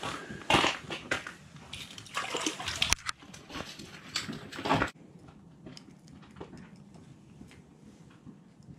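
A walleye splashing and thrashing in an ice-fishing hole as it is lifted out by hand: a run of loud, irregular splashes and slaps over the first five seconds. It then cuts off suddenly to faint clicks and rustles of the fish being handled.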